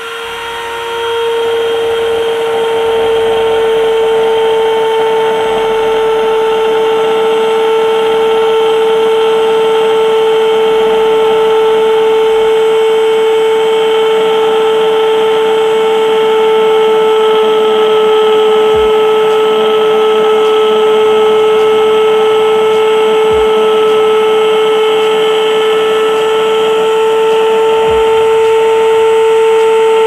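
Handheld mini grinder running at a steady high speed, its bit cutting along the pattern lines in a PVC pipe: a steady, high-pitched whine over a rough cutting noise, getting louder about a second in.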